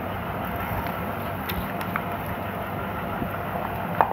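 Silicone spatula stirring fruit custard in a glass dish, with a few light clicks and one sharper knock against the glass near the end, over a steady background noise.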